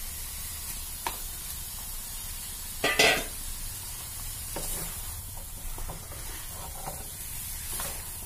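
Raw chicken pieces sizzling in a hot pan of onion-tomato masala, with a wooden spatula knocking and scraping against the pan as it stirs. The loudest clatter comes about three seconds in.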